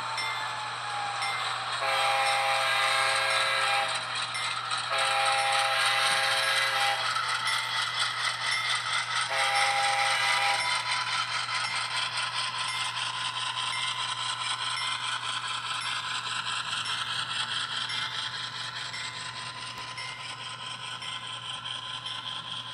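Train horn sounding three times, two long blasts and then a shorter one, over the steady running and rattling sound of a passing train.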